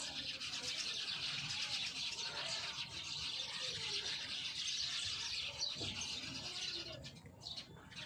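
A dense chorus of many birds chirping together in the trees: a continuous high chatter that thins out briefly near the end.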